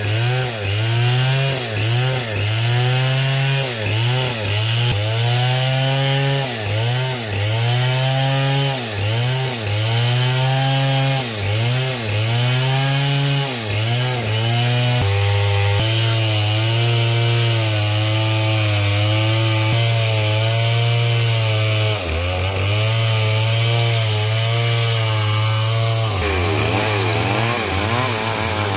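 Two-stroke chainsaw cutting through coconut palm wood. The engine's pitch sags under load and recovers about once a second for the first half, then runs steadier at high revs with a couple of brief dips.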